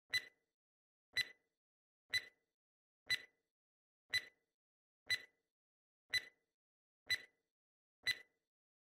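Countdown-timer sound effect ticking once a second: short, sharp clock-like ticks, nine in all, with dead silence between them, counting off the seconds of a ten-second answer countdown.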